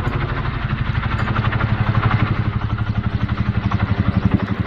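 CH-47 Chinook tandem-rotor military helicopter flying overhead: a steady, rapid, even beat of rotor blades over engine and turbine noise.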